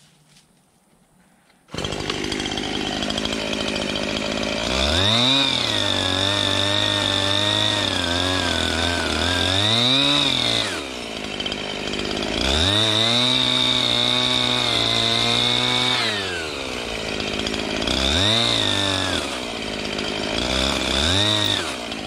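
Two-stroke gas chainsaw starting up about two seconds in and idling, then run up to full throttle twice for several seconds at a time, dropping back to idle between the runs. Near the end it is revved in two short blips.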